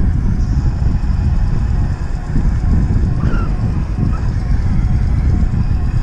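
Wind buffeting the camera microphone and the rumble and rattle of a Norco Aurum downhill mountain bike rolling fast over a rough trail, a loud, continuous, uneven low rumble.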